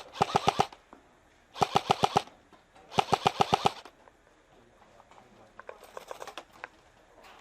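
Airsoft gun firing on full auto in three short rapid bursts of roughly a dozen shots a second, then fainter, more scattered shots later on.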